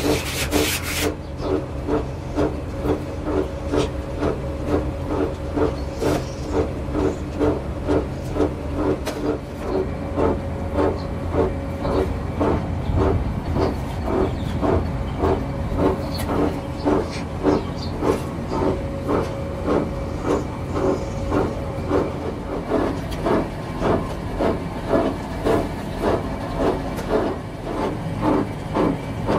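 Two-roll rubber mixing mill running as rubber compound is worked with white filler powder between its rollers: a steady low hum with a regular pulse about twice a second.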